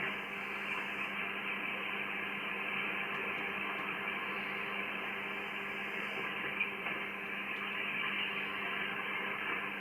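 Shortwave receiver audio tuned to the 80 m amateur band: steady band noise and hiss through the receiver's narrow voice filter, with a low steady hum and faint steady tones in it.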